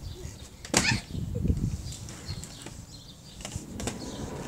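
Inline skate wheels and boots on patio tiles: a loud thump close to the microphone about a second in, then a short low rolling rumble and a few light clicks.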